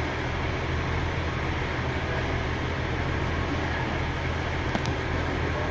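Class 143 Pacer diesel multiple unit standing with its underfloor diesel engine idling: a steady low rumble that does not change.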